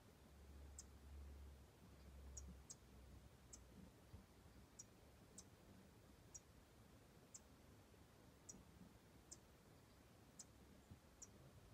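Faint, thin, high-pitched tick calls from a pair of Cuban finches, short single notes about once a second at irregular intervals, over a faint low hum for the first couple of seconds.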